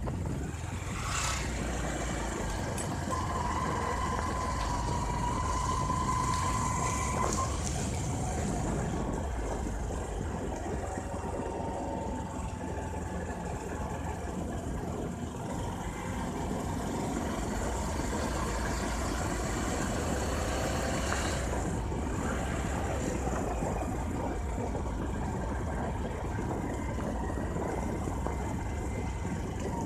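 Bajaj Discover 150F motorcycle's single-cylinder engine running as the bike rides along, with air rushing over the phone microphone. A thin steady tone sounds for about four seconds a few seconds in.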